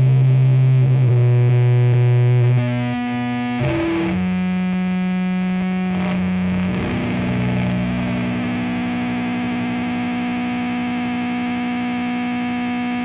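Sludge/doom metal intro: heavily distorted electric guitar holding long, slow sustained notes that change pitch every few seconds, with no drums yet.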